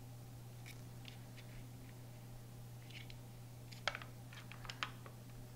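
Gold foil seal on a Nutella jar being picked at and peeled back from the glass rim: a few faint crinkles, then a quick cluster of sharp crackles about four seconds in.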